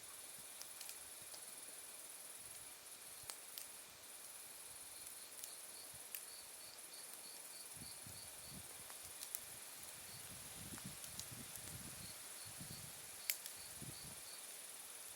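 Autumn night insects singing faintly: a steady high trill with a second insect's quick chirps, about four a second, coming in twice. An open wood fire crackles with scattered small pops, one sharper pop near the end.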